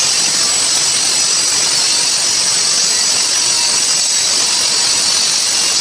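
Loud, steady machine noise, a continuous hiss with a faint high whine, like a motor running without let-up.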